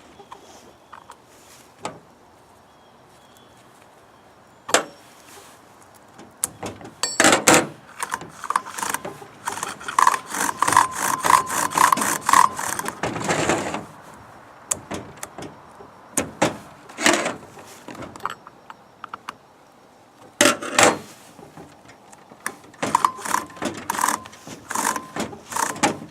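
Metallic clinks, rattles and scraping as a new saw chain is tensioned on a chainsaw bar and worked around it by hand. The sounds come in irregular bursts with quiet gaps, with a run of small ringing clinks about ten seconds in.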